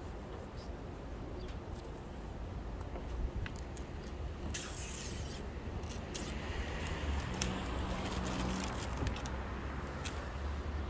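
A car driving past on the street, its sound swelling and fading over a few seconds about halfway through, over a steady low outdoor rumble. Just before it comes a brief scraping hiss, with a few faint clicks of hands working at a truck tailgate.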